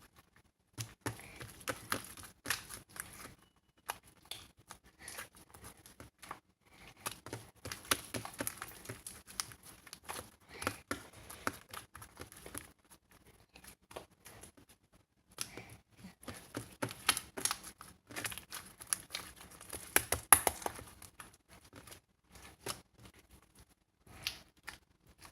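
Irregular crinkling and tearing handling sounds with many small clicks, coming in bursts with short pauses; the loudest cluster is about twenty seconds in.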